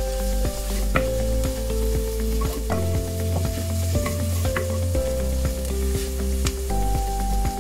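Sliced onions, ginger and garlic sizzling in hot oil in a clay pot while a wooden spoon stirs them, with many small clicks and scrapes against the pot. Background music with slow held notes plays along.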